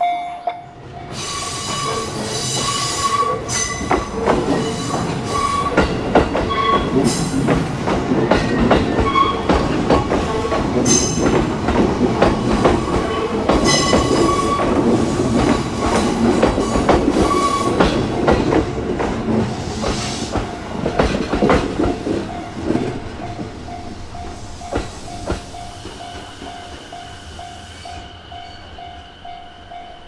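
JR Ome Line electric commuter train passing over a level crossing: wheels clacking over the rail joints with intermittent wheel squeal, the noise building from about a second in and fading over the last several seconds. The steady tone of the crossing's warning alarm stands out again near the end as the train noise dies away.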